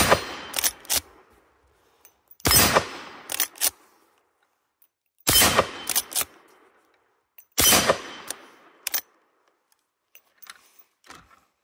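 Four rifle shots about two and a half seconds apart from a Citadel Levtac-92 lever-action rifle chambered in .357 Magnum. Each shot trails off and is followed within a second by sharp metallic clicks as the lever is worked to chamber the next round. A few lighter clicks come near the end.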